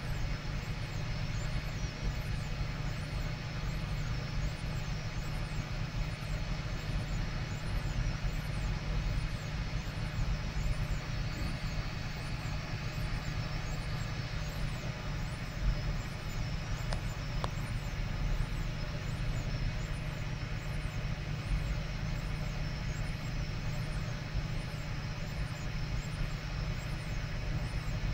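Home-built 3D printer printing at fine layer height: a steady mechanical hum and whine from its stepper motors and radial blower cooling fan.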